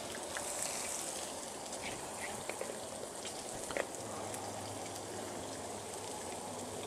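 Bacon, sausages and a vegetable hash sizzling in oil on a hot flat-top griddle: a steady frying hiss with scattered small pops and crackles.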